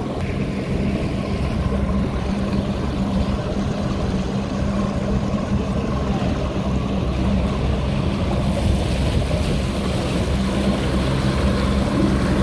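Outboard motor running at a steady speed, pushing the boat along, with the rush of water and wind over it. The hiss grows a little stronger about two-thirds of the way through.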